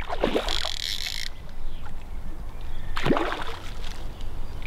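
Hooked rainbow trout thrashing and splashing at the water surface while it is played in on a fly line, with splashes near the start and again about three seconds in and a brief hiss of spray between them. A steady low rumble runs underneath.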